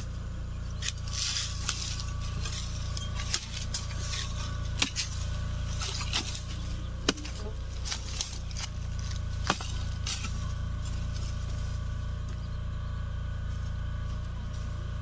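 A long-handled digging tool with a metal blade chopping and scraping into hard, dry soil and roots: a run of irregular clinks and knocks that thins out after about ten seconds, over a steady low rumble.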